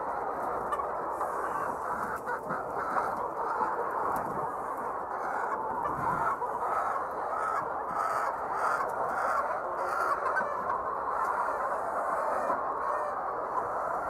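A large flock of white laying hens clucking together in a steady, unbroken chorus.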